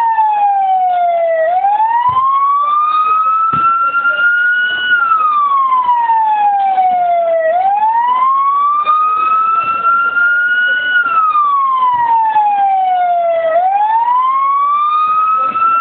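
Emergency vehicle siren in a slow wail: the pitch sinks over about three seconds, then climbs back over about three more, and the cycle repeats.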